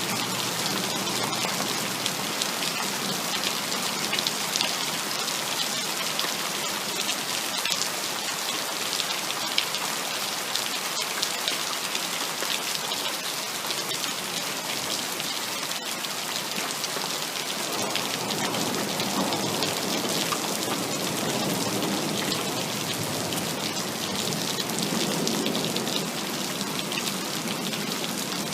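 Heavy rain falling steadily: a dense, even patter and hiss of countless drops on surfaces.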